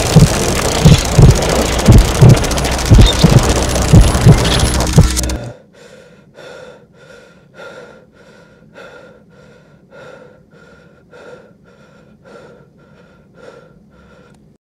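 Abstract electronic soundtrack. It opens as a loud, dense wash of noise with low heartbeat-like thumps about twice a second, then cuts off suddenly about five seconds in. A much quieter, even series of short soft pulses follows, about two a second.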